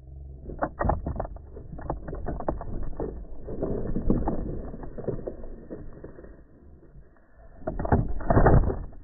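A border collie's paws thumping and knocking along a dog-agility seesaw plank close to the microphone, with rattles from the board. The heaviest run of thumps comes near the end as the dog reaches the end of the plank.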